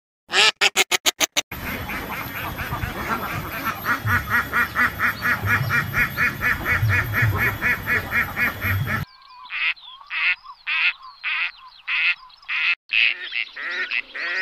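Ducks quacking. A quick run of quacks comes first, then a long rapid series over a rough, noisy background. After about nine seconds the quacks come separately, about two a second.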